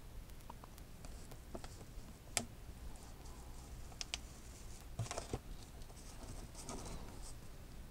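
Faint, scattered clicks and light taps from handling a small motor and its wires while soldering, the loudest a sharp click about two and a half seconds in.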